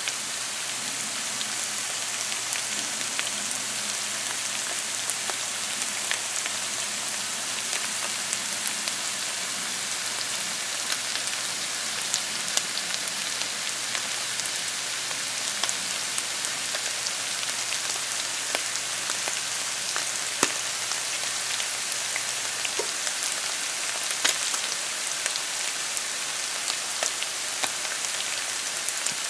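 Garlic pork cubes frying in their own rendered fat in a frying pan, with the vinegar cooked off: a steady sizzle with scattered small pops and crackles.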